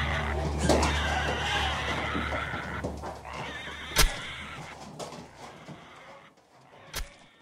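A pig squealing, the cry fading away over several seconds, with two sharp knocks about four and seven seconds in.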